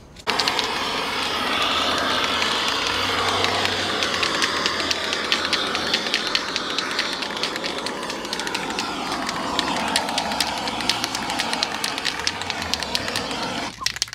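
Handheld gas torch burning, a steady loud blowing roar with many small crackles; it comes on abruptly right at the start and cuts off sharply near the end.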